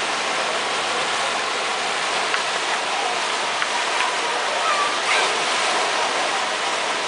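Water pouring steadily from the outlets of several tube water slides into a splash pool: a continuous rushing splash.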